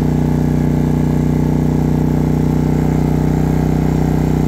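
Maxpeedingrods MXR3500 inverter generator's engine running steadily under load, powering air fryers, with an even drone that holds constant speed.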